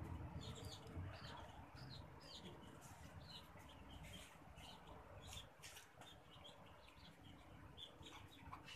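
Faint, quick high chirps of small birds, several a second, with a few soft clicks, over near silence.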